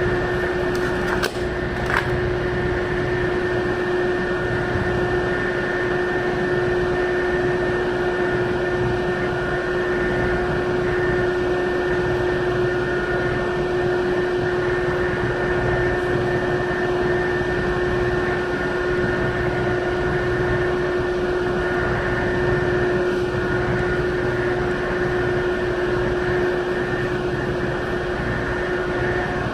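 Steady mechanical drone of a car ferry's engines and machinery heard aboard the ship, with a constant low hum tone over an even rumble. Two short clicks come about a second and two seconds in.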